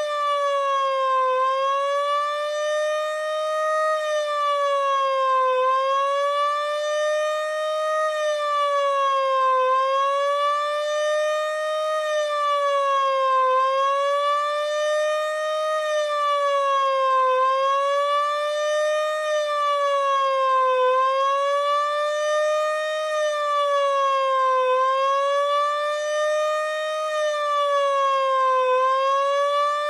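Miniature STH-10-style mechanical siren, driven by a Maytag induction motor, sounding a sustained single tone. The pitch sweeps gently down and back up about every four seconds.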